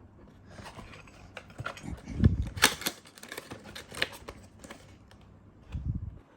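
Cardboard box and paper inserts being handled during an unboxing: a string of crisp rustles and clicks, with a dull thump about two seconds in and another near the end.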